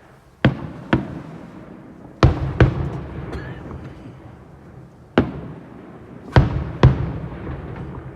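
Aerial fireworks shells bursting: seven sharp bangs, mostly in pairs about half a second apart, each followed by a rumbling echo that dies away over about a second.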